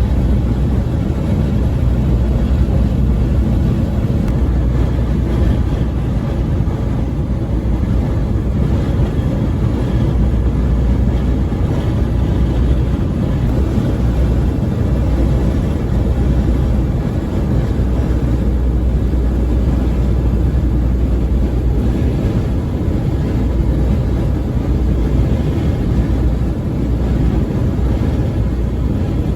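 Semi truck driving at steady highway speed: a continuous low engine drone with road and tyre noise, without any change.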